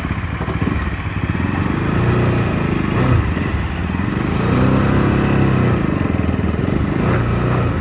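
Motorcycle engine heard from the bike itself, pulling away at low speed. Its pitch rises and falls as the throttle is opened and eased.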